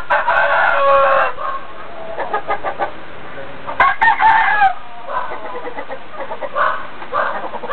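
Chickens calling: a rooster crows twice, a long crow at the start and a shorter one about four seconds in, with clucking between.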